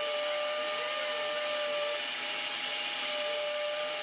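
Desktop CNC router spindle milling acetal plastic with a small end mill: a steady high-pitched whine over cutting noise, with a faint warble rising and falling about twice a second as the bit moves through its passes.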